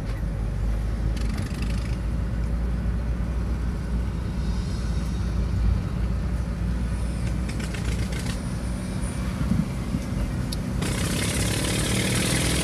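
Steady low engine and road drone of a vehicle, heard from inside a car following a motorcycle. About eleven seconds in, a loud steady hiss comes in on top of it.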